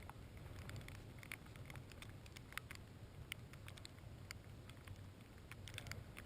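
Snow pattering in faint, irregular ticks over a low rumble of wind on the microphone.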